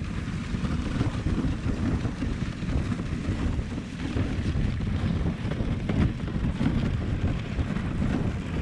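Wind buffeting an action camera's microphone on a moving dog sled: a steady low rushing that rises and falls, over the hiss of the sled runners on packed snow.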